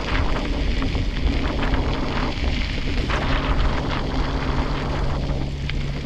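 Wind buffeting an action camera's microphone while riding a mountain bike, with a steady low hum coming in about a second in.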